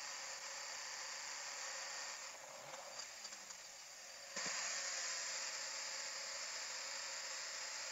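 Faint steady hiss of room tone. It drops away for about two seconds midway, with a few tiny ticks, and returns with a small click.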